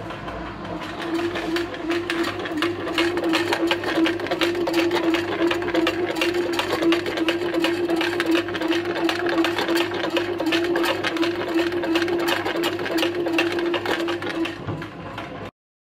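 Princess Wake Up bread maker kneading dough: the motor runs with a steady hum and a fast rattle from the kneading paddle and pan. It stops abruptly near the end.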